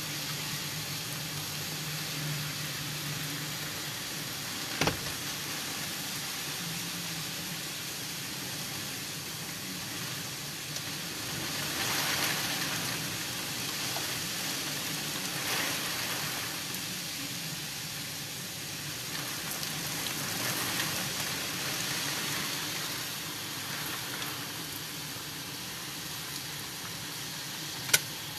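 Heavy rain pouring down, heard through a window as a steady hiss that swells a few times. Two sharp clicks stand out, one about five seconds in and one near the end.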